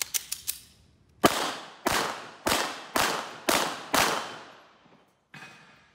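Handguns drawn with a few light clicks, then six pistol shots about half a second apart, each ringing out and dying away, fired by two shooters side by side.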